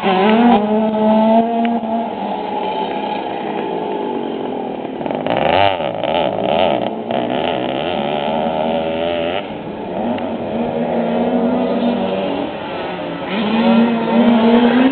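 Several motocross dirt bike engines revving up and down, pitch rising and falling as they ride the track, with one passing close and loud about five to seven seconds in.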